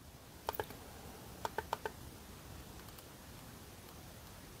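Faint clicks from the radio's rotary encoder knob being turned and pressed: two about half a second in, then four in quick succession around a second and a half in.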